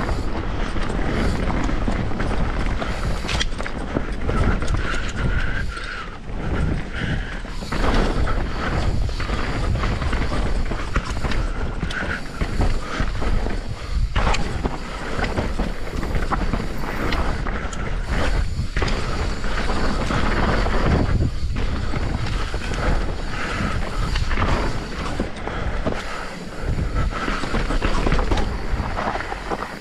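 Mountain bike rattling and clattering down a rough, rocky technical trail: steady tyre and chassis noise broken by frequent knocks and jolts, with wind buffeting the chest-mounted action-camera microphone.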